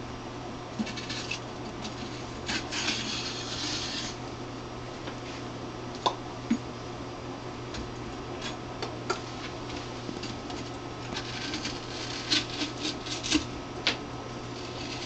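Knife cutting and scraping inside a watermelon being hollowed out: scattered rasping scrapes and small clicks, busiest near the start and again near the end, over a steady low hum.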